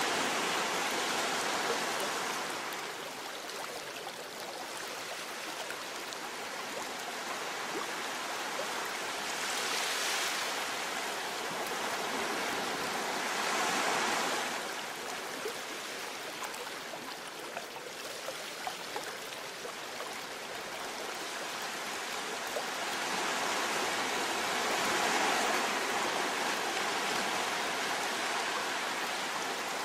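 Ocean surf breaking and washing over a rocky shore: a steady rush of water that swells in slow surges, loudest about ten, fourteen and twenty-five seconds in.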